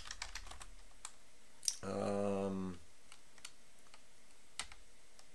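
Computer keyboard being typed: a quick run of keystrokes in the first second, then a few scattered single keystrokes. About two seconds in comes a man's drawn-out, steady 'uh' lasting under a second.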